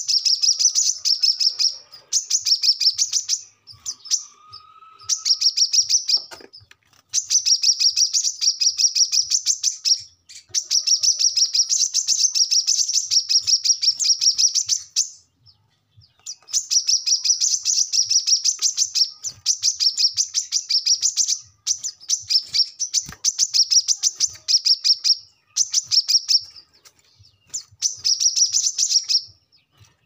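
Male brown-throated sunbird (kolibri kelapa) singing its fast chattering 'ngobra' song. It is high, rapid runs of sharp chip notes in phrases of one to four seconds, broken by short pauses.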